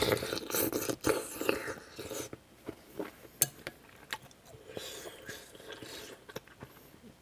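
Close-up eating of kimchi stew: wet chewing and mouth noises, loudest in the first two seconds, with scattered sharp clicks, the loudest about three and a half seconds in.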